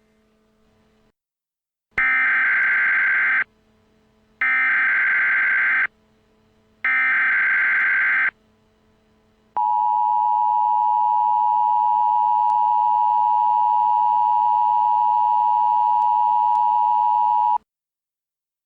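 Emergency Alert System alert: three screechy digital SAME header data bursts, each about a second and a half long with short gaps between them. They are followed by the EAS two-tone attention signal, held steady for about eight seconds before it cuts off sharply.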